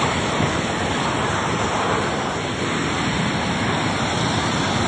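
A muddy river in flood rushing past: a loud, steady wash of churning water with no letup.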